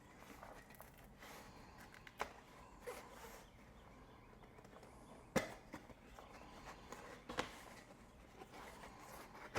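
Hands forcing a bicycle tire's bead back over the rim against its tension: faint rubbing and handling noise broken by three sharp clicks, the loudest about halfway through.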